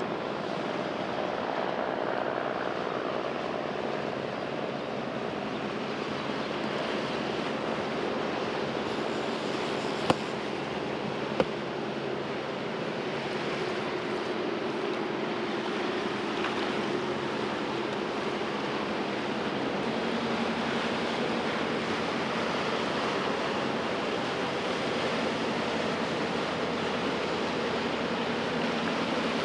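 Steady rush of choppy sea water and wind, with a faint, slowly wavering motor hum underneath. Two sharp clicks come about ten and eleven and a half seconds in.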